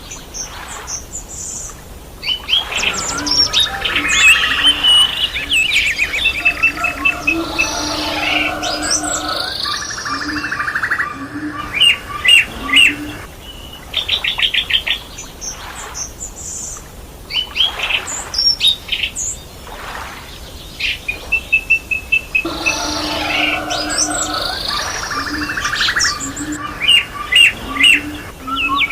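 Several birds singing and calling together: a mix of chirps, whistles and rapid trills, some in fast repeated notes. The same stretch of song seems to come round again about twenty seconds later, as in a looped recording.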